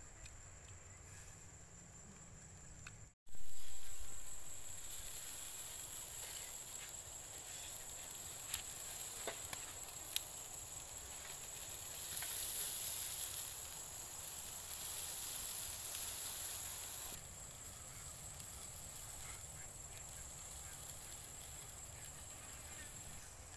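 Chicken sizzling on a charcoal grill, a steady high hiss that starts abruptly about three seconds in, with a few light clicks of a knife and tongs against the meat and grill; a steady high thin tone runs underneath.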